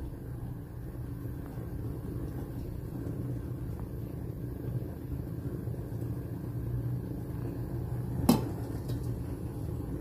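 Gas stove burner running with a steady low rumble under the pan. One short knock comes about eight seconds in.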